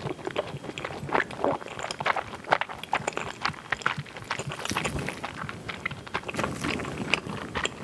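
Close-miked chewing of soft, chewy fishcake: irregular wet mouth clicks and squishes, several a second.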